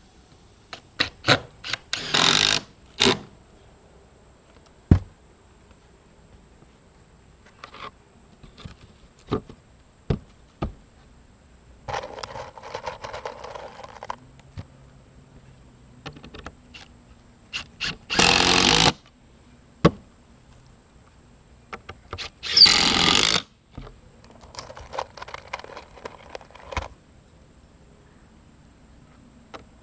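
A power tool running in three short bursts of about half a second to a second, with scattered sharp knocks and taps between them, during the fitting of replacement roof plywood.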